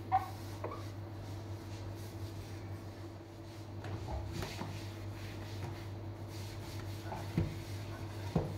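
Cloth rubbing and wiping across a glass cooktop as it is dried, with a few light knocks: one at the start and two near the end. A steady low hum runs underneath.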